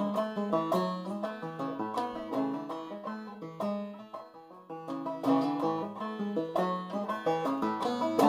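Long-neck banjo played clawhammer style in double A tuning: a brisk, steady run of plucked and brushed notes.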